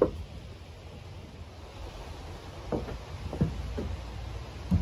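A few soft knocks and shuffling sounds as the peeled logs of a log futon frame are handled and moved, over a low steady background rumble.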